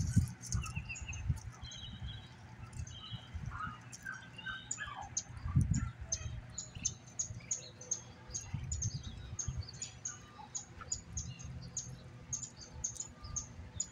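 Quick, high bird chirps repeated several times a second through the second half, with a few lower chirps earlier, over scattered soft low thumps while a flock of Muscovy ducks feeds on the pavement.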